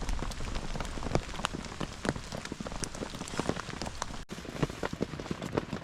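Heavy rain falling, with many large drops striking a surface close by in irregular sharp taps over a steady hiss. The sound cuts out for an instant about four seconds in.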